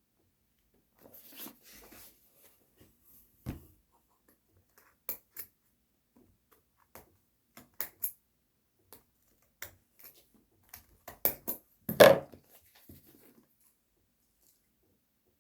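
Scattered clicks, taps and brief rustles from handling a phone and its packaging, with one louder knock about twelve seconds in.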